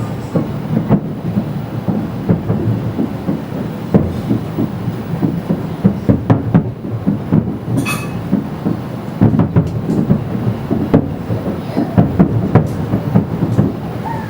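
Fireworks going off in a dense barrage: a steady low rumble of distant bursts with many sharp bangs on top, coming irregularly, several a second at times.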